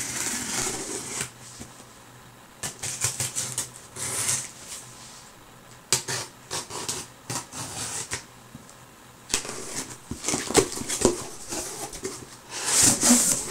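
Cardboard subscription box being opened and its packaging handled: paper and cardboard rustling and crinkling in irregular bursts, with a few sharp clicks and taps, as the sticker seal is torn.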